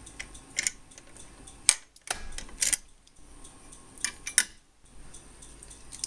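A ring of keys jingling and a reset key being worked in the lock of a fire alarm pull station, giving a handful of sharp metallic clicks and clinks.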